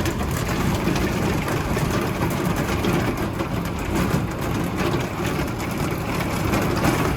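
Hail and rain pattering on a cable-car cabin in a storm, over a steady low rumble.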